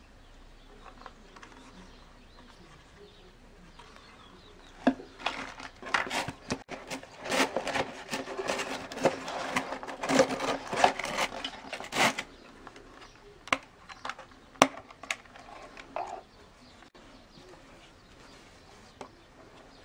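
A cardboard box and a plastic trail camera case being handled: starting about five seconds in, a cluster of rustles, scrapes and clicks for several seconds, then a few single clicks.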